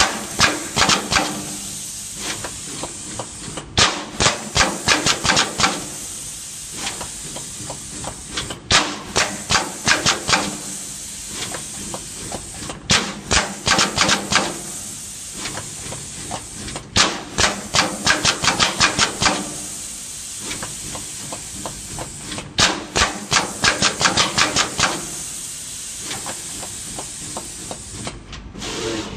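Automatic through-hole component insertion machine running: bursts of rapid sharp clicks, about five a second for a second or two, recurring every four seconds or so, over a steady machine hum and hiss.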